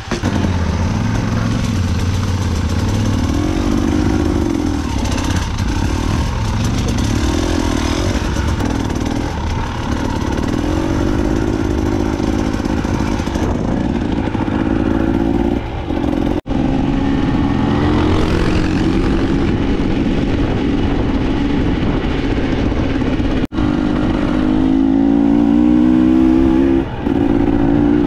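Enduro motorcycle engine running under throttle, its revs rising and falling throughout, with the sound dropping out abruptly for a moment twice in the second half.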